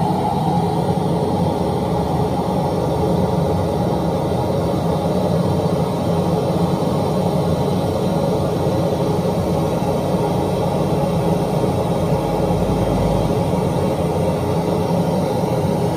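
Steady test noise played loud through the sound system's speaker boxes while the system is being measured and tuned; an even rush, mostly deep, with little treble.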